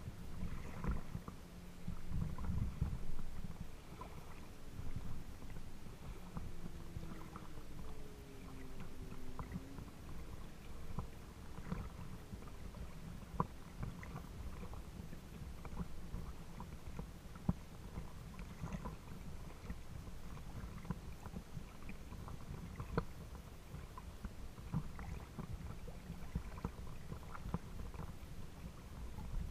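Water lapping and splashing against a kayak's hull as it moves across open water, with scattered small knocks and a steady low rumble. A faint falling tone comes and goes between about five and ten seconds in.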